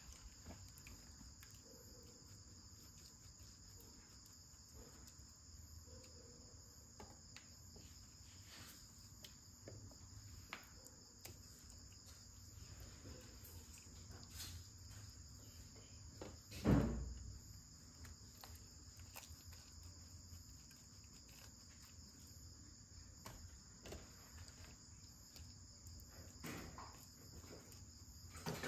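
Steady, faint high-pitched insect chorus, with scattered light clicks and one louder dull thump about seventeen seconds in.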